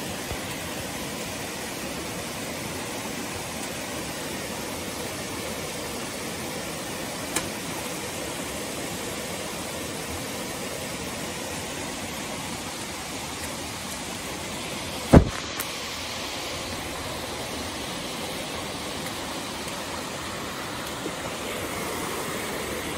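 Steady rush of a creek and its waterfall, with a faint click about halfway through and a single sharp knock about fifteen seconds in.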